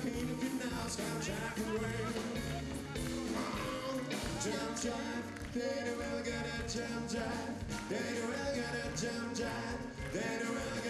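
Live blues band playing, with singing over drums, electric guitar and keyboard.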